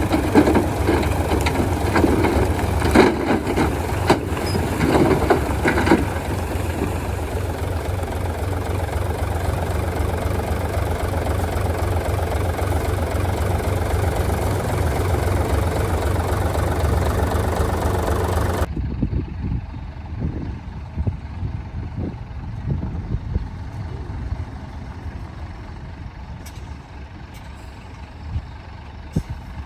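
Heavy diesel machinery engine running steadily, with a few knocks in the first seconds. About two-thirds of the way through the sound cuts off abruptly to a quieter, duller engine rumble with scattered clanks.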